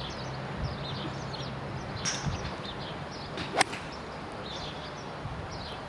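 Golf iron striking the ball in a full swing: one sharp, short crack of impact about three and a half seconds in.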